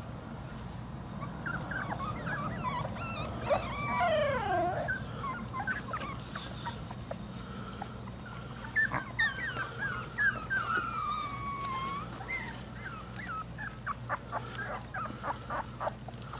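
Young boxer puppies whining and whimpering in high, falling calls: a sharp downward whine about four seconds in, a longer drawn-out whine around ten seconds, and a quick run of short whimpers near the end.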